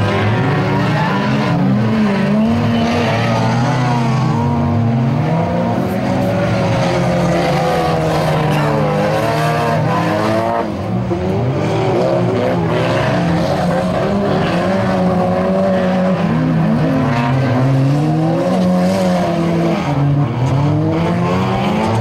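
Several stock-car engines racing on a dirt track, overlapping and each rising and falling in pitch as the drivers work the throttle through the turns.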